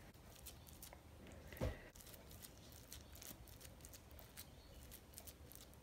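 Faint rustling and patting of gloved fingers shaping a moist spring roll filling of mince, vermicelli and shredded carrot on a pastry wrapper, with one slightly louder soft knock against the plate about a second and a half in.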